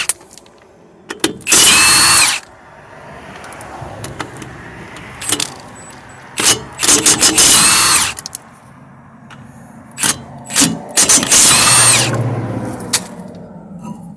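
Milwaukee 1/2-inch impact wrench with a 21mm socket hammering in three bursts of about a second each, taking the lug nuts off a scrap car's wheel. A few light metal clanks come between the bursts.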